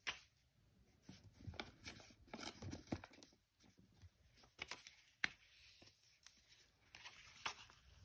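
Faint rustling and handling of paper, with scattered small clicks and taps as craft supplies are picked up and set down.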